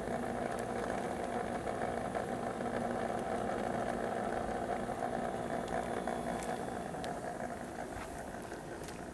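Stainless-steel submersible water pump running in a shallow water channel: a steady mechanical hum that grows a little fainter near the end.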